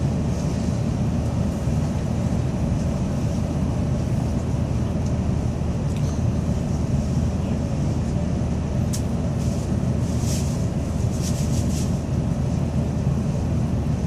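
Steady running noise of a Tokaido Shinkansen train heard from inside the passenger cabin: a constant low rumble of wheels and air. A few short, high hisses come about nine to twelve seconds in.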